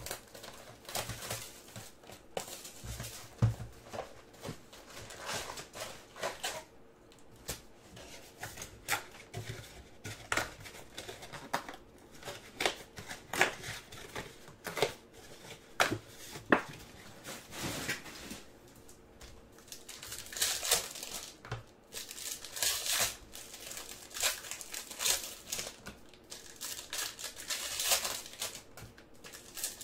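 Crinkling and tearing of the shiny wrappers of 2018-19 Panini Contenders basketball card packs as they are handled and torn open by hand: a string of sharp crackles, busiest in the last third.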